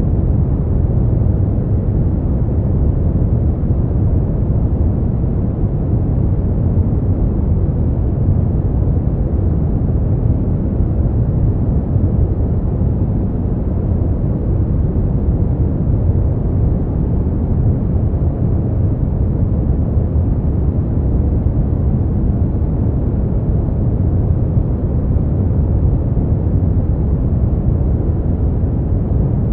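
Steady brown noise: an even, deep rumbling hiss, strongest in the bass and fading toward the treble, with no changes.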